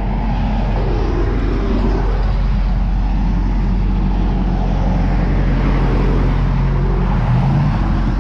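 Steady highway traffic noise with a heavy low rumble. A low engine hum swells in the second half and stops shortly before the end.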